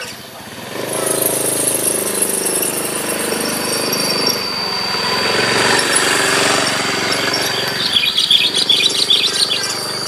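A steady engine hum comes in about a second in and keeps running. A thin, steady high whine joins it midway, and near the end there is a flurry of bird chirps.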